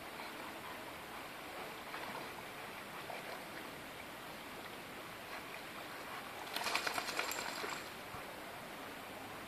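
Steady hiss of a shallow stony river flowing. About two-thirds of the way through, a burst of rapid splashing lasts about a second, from a German shepherd swimming into the shallows.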